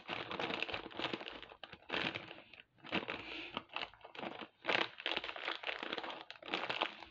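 Clear plastic bag of glass seed beads being handled and worked open by hand, the thin plastic crinkling and crackling in a run of short bursts.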